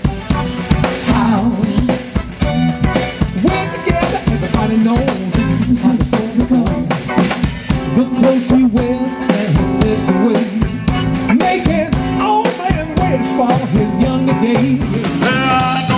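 Live band playing a song, the drum kit to the fore with regular snare and cymbal hits under bass and a melody line.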